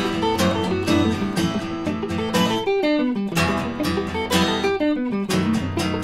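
Acoustic and electric guitar playing together live, an instrumental stretch of a song, with falling runs of notes about halfway through and again near the end.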